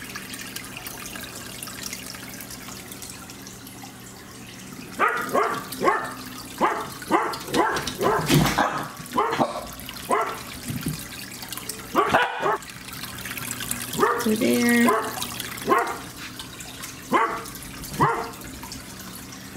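A dog barking over and over in short, sharp barks, starting about five seconds in and coming every second or so: a dog shut outside, barking to be let in.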